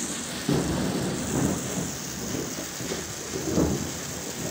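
Heavy rain falling steadily, with water pouring off a roof edge, under low rumbles of thunder that swell about half a second in and again around three seconds in.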